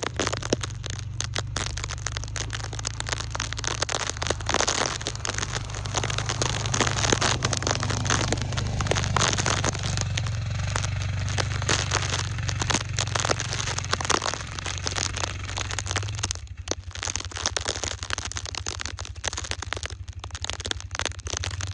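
A four-wheeler's engine running steadily under dense crackling and scraping noise. The engine's hum drops about two-thirds of the way through.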